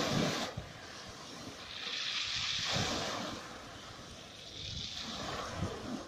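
Small sea waves washing onto the beach, each wash a hiss that swells and fades, three times, over wind rumbling on the microphone.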